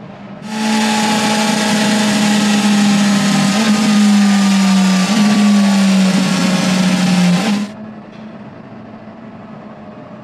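BMW motorcycle running at high, steady revs on a roller test stand, its spinning tyre whirring on the rollers. The sound comes in suddenly about half a second in, sags slightly in pitch, and cuts off abruptly near eight seconds, leaving a lower steady hum.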